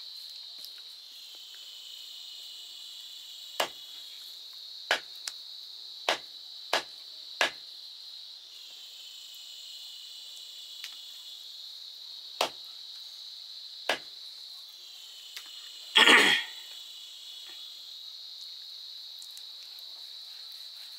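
Heavy knife chopping raw pork on a wooden log chopping block: sharp single knocks, a run of about six a little over a second apart in the first half, two more spaced out, then a louder, longer clatter of blows about three quarters of the way through. Insects chirr steadily behind.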